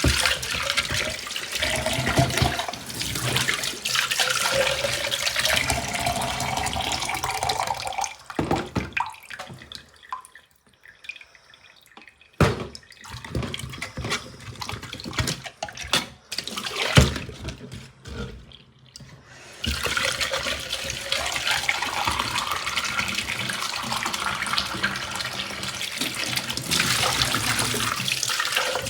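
Water running from a tap into a container for several seconds, with a tone that slowly rises as it fills. This is followed by a stretch of scattered knocks and clatters, then a second spell of running water with the same rising tone.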